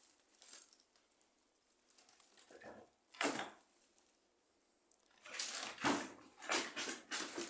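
Rustling and crunching of debris and rotten wood being stepped on and moved, in irregular bursts: one about three seconds in, then several close together near the end.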